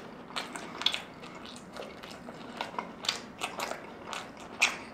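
Chewing a mouthful of consommé-dipped birria taco: irregular wet mouth clicks and small crunches, about two or three a second.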